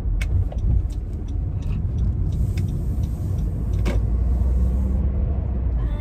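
Low, steady rumble of a car on the move, heard inside the cabin: engine and road noise, with scattered light clicks and a sharper knock about four seconds in.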